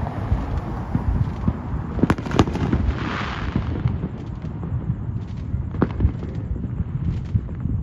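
Aerial fireworks going off in the sky: a running crackle of pops and bangs, with two sharp bangs about two seconds in followed by a brief hissing crackle.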